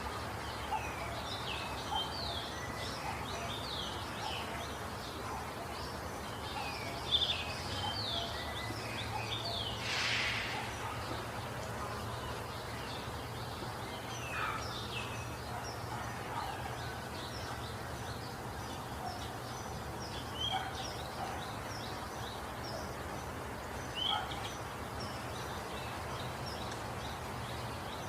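Small birds chirping: many short, high calls sliding downward, scattered throughout over a steady background hiss, with one louder, harsher call about ten seconds in.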